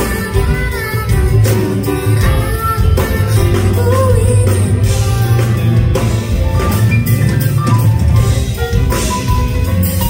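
Live pop song: a woman singing at a grand piano, backed by a drum kit and a steady bass line.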